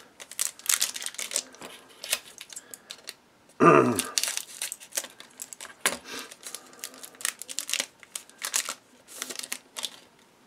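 Foil trading-card pack wrappers crinkling and cardboard cards being handled and shuffled, in many short rustles and clicks, with one louder, short rasp a little over a third of the way in.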